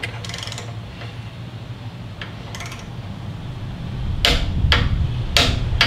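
Torque wrench tightening the front axle pinch screw: a few light ticks, then two sharp clicks about a second apart near the end as the wrench reaches its 20 ft-lb setting.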